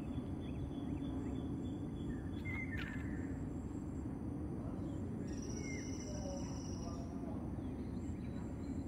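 Steady low outdoor background rumble with a few faint bird chirps. About five seconds in, a high thin tone holds for under two seconds.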